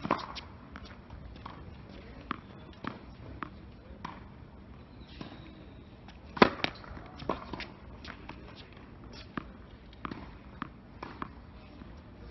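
Tennis balls on a hard court: sharp pops of a racket striking the ball, the loudest about six seconds in, and runs of lighter ball bounces at about one every 0.6 seconds, as before a serve.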